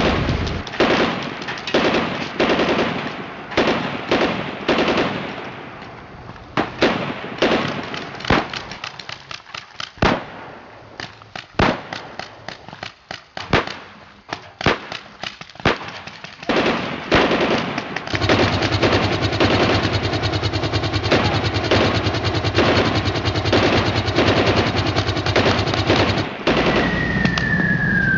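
Irregular sharp bangs like gunshots, turning about two-thirds of the way in into a continuous rapid rattle like automatic fire over a steady low hum, with a falling whistle-like tone near the end.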